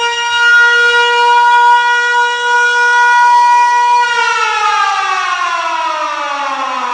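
Air-raid siren sounding a steady high wail. About four seconds in it begins to wind down, its pitch falling steadily.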